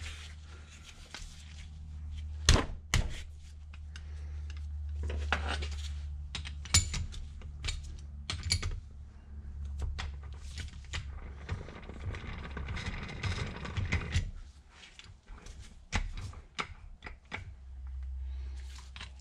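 Knocks and clinks of a rusty three-jaw lathe chuck and metal tools being handled and probed on a workbench, the sharpest knock a couple of seconds in, with a stretch of scraping past the middle. A steady low hum runs underneath.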